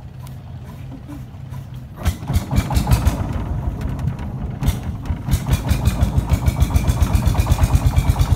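Wooden long-tail boat's engine running low for about two seconds, then suddenly opening up into a loud, rapid, even chugging that quickens after about five seconds as the boat gets under way.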